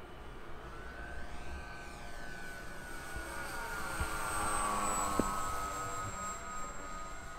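Radio-controlled model airplane flying past: its motor whine grows louder, is loudest about five seconds in, and drops in pitch as the plane goes by.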